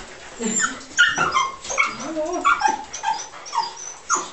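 English Cocker Spaniels whining and yipping in a rapid string of short, high-pitched cries, most of them falling in pitch.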